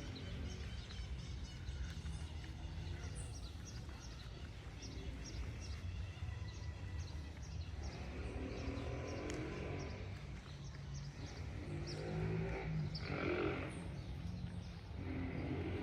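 Small-town outdoor ambience: a steady low rumble with many small birds chirping. A few louder drawn-out pitched sounds come and go, the loudest about thirteen seconds in.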